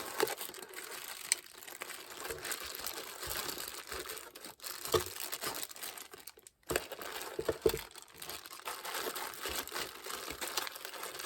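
Plastic packaging crinkling and rustling, with scattered small clicks and knocks, as the parts of a boxed smart lock are handled.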